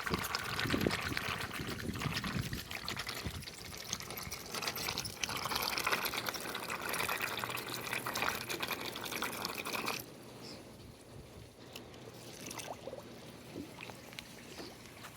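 Pool water splashing and trickling at the surface, dropping to a fainter trickle about ten seconds in.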